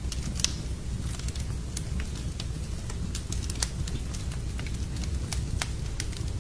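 Wood fire crackling in a fireplace: irregular sharp pops and snaps over a steady low rumble, with a couple of louder pops.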